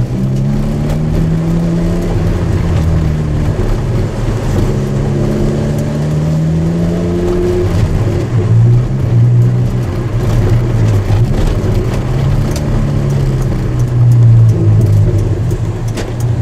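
Opel Speedster's engine heard from inside the cabin while driving, its pitch rising and falling again and again as the car accelerates and eases off.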